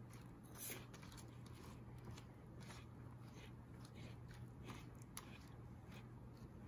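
Faint, irregular scraping and shuffling of raw apple slices being pushed around a metal baking pan with a silicone spatula, over a low steady hum.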